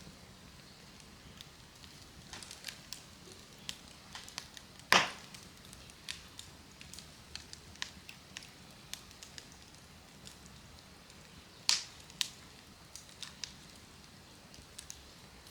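Wood campfire crackling with scattered small pops and two loud, sharp snaps, one about a third of the way in and one about three quarters through.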